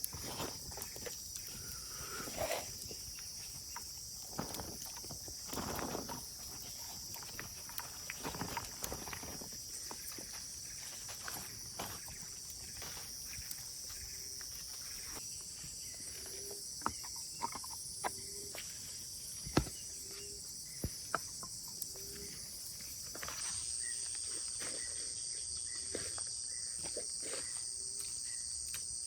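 Tropical forest insects shrilling steadily, with a second, higher-pitched insect joining near the end. Scattered clicks and light knocks, and a faint short low call repeating about once a second through the second half.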